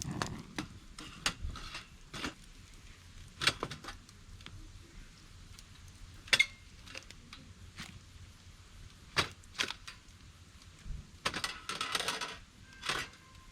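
Scattered sharp taps and light clinks of small hard objects being handled, irregular and a second or so apart, one with a short metallic ring about six seconds in. A quick flurry of them comes near the end.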